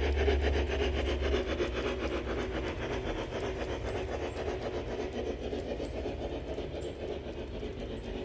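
G scale model steam locomotive and passenger coaches running along garden railroad track, with a steady rapid clicking and a low motor hum. The hum drops away after about a second and a half, and the whole sound fades slowly as the train passes.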